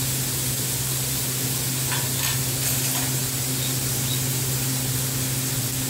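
Diced chicken, with onion just added, sizzling in a frying pan on a gas stove: a steady frying hiss over a low, even hum, with a few faint taps about two to three seconds in.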